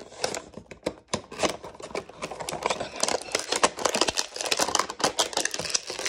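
Rapid, irregular clicking and rattling of hard plastic as a Rubik's Cube is worked loose from its plastic retail packaging.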